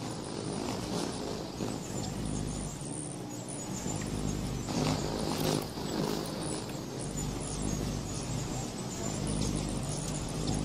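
Many hummingbirds' wings humming as they hover around sugar-water feeders, a low buzz that rises and falls as birds come and go, with faint high chips over it.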